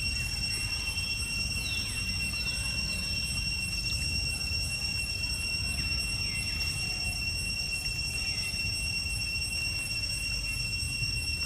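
Steady high-pitched drone of insects, with several short falling chirps every second or two and a low rumble of wind on the microphone.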